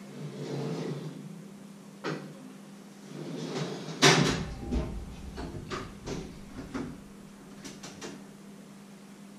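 Rummaging in a low kitchen cupboard: cupboard doors and cookware knocking and clattering, with one loud bang about four seconds in and a run of smaller knocks after it. A steady low hum runs underneath.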